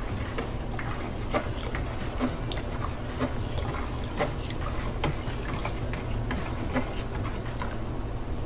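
Lye solution poured from a plastic jug into a bowl of soap oils while a ladle stirs: small irregular drips, splashes and light clinks over a steady low hum. This is the lye being added to the oils in cold-process soapmaking.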